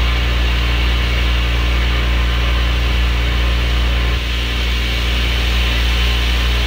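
Sandblasting from a homemade pressure-pot blaster inside a blast cabinet: a loud, steady hiss of compressed air and abrasive grit striking a motorcycle rim to strip it for powder coating, over a strong low hum that dips briefly about four seconds in.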